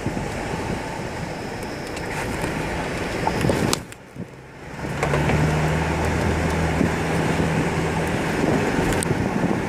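A vehicle driving, heard from inside: engine hum with road and wind noise. About four seconds in the noise drops away for about a second, then comes back with a steady low engine drone.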